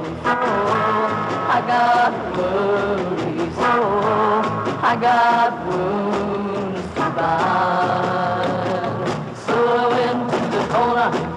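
A 1960s folk-rock song: a sung vocal line over strummed guitars and a rhythm section.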